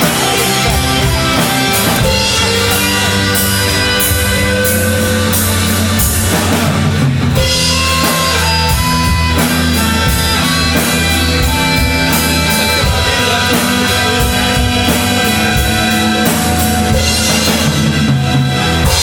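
Live rock band playing at full, steady volume: drum kit, electric guitars, acoustic guitar and keyboard together, with held melody notes over a continuous beat.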